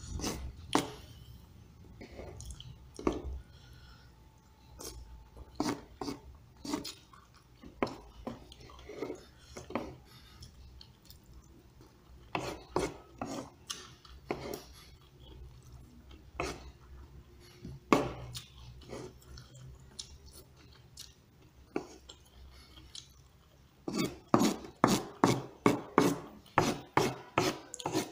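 Metal spoon and fork scraping and chopping at rice and potato against the table surface: a series of short scrapes and taps, which come in a quicker, regular run near the end.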